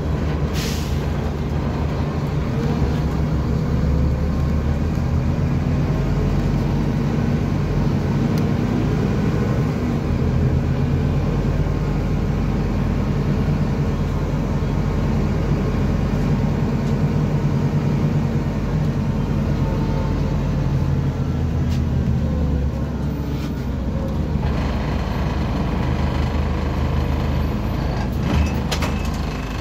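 Scania DC9-17 five-cylinder diesel of a 2007 Scania CN270UB city bus running steadily as the bus drives, heard from inside the passenger cabin. A few sharp clicks near the end.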